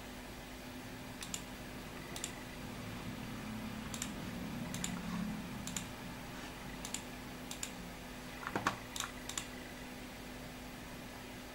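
Sharp single clicks of computer input, about ten of them scattered over eight seconds with a quick cluster near the end, as a PC mouse clicks through a program's dialog buttons. A low steady hum runs underneath.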